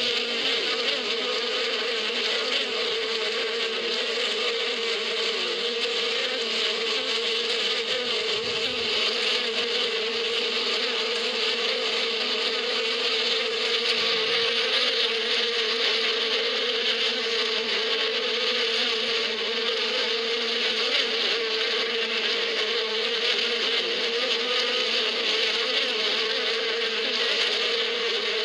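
Many honeybees flying around a hive in a dense cloud, their buzzing merging into one steady, unbroken hum.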